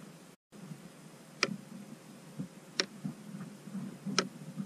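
Three sharp clicks about a second and a half apart over a low, muffled rumble, with a brief dropout to silence just before the first half-second ends.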